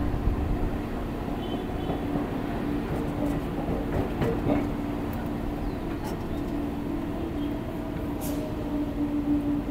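Electric local train running along the track at speed, heard from the open doorway of a coach: a steady rumble of wheels on rails with a steady hum running through it.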